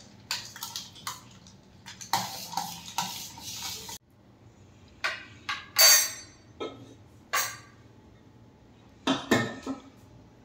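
Steel ladle stirring milky watermelon sharbat in a steel pot, scraping and clinking against the pot's sides. This is followed by several separate clinks and knocks of steel and glass kitchenware being handled and set down on the counter, one with a bright ring.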